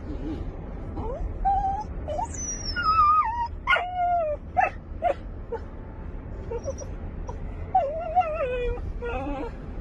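A dog whining and whimpering in high, wavering, falling cries, with a few short yelps near the middle, over a low steady rumble.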